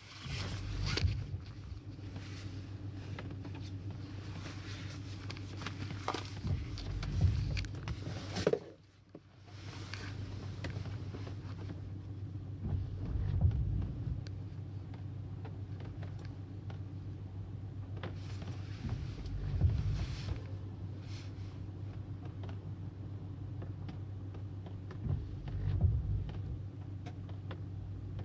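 Inside a car driving in the rain: a steady engine and road drone with raindrops ticking on the body and glass, and a swell of sound about every six seconds. The sound drops out briefly about nine seconds in.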